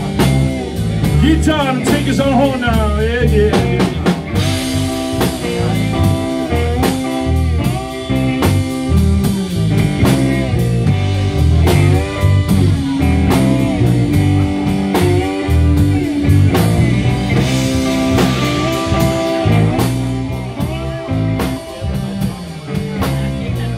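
A live blues band playing a slow blues, with a blues harmonica, played cupped around a microphone, taking the lead over electric guitar and drum kit. The lead line bends up and down in pitch near the start, then holds long notes.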